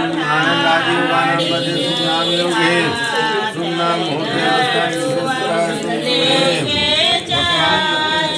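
Voices singing a slow, chant-like melody with long held notes that waver in pitch.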